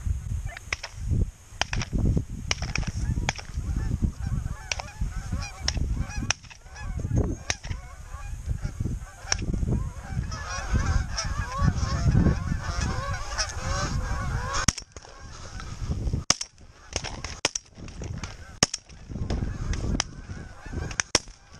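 A flock of geese honking: many short, overlapping calls that are thickest about ten to fourteen seconds in. Wind rumbles on the microphone throughout.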